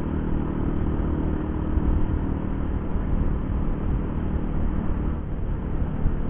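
Yamaha Jupiter Z1's small single-cylinder four-stroke engine running at a steady cruise, mixed with steady wind rush on the rider's helmet microphone.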